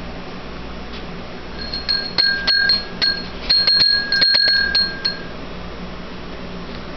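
Bell made from a brown glass beer bottle being rung: its clapper strikes the glass in a quick run of clinks, each ringing with a clear high tone. The ringing starts about one and a half seconds in and stops about five seconds in.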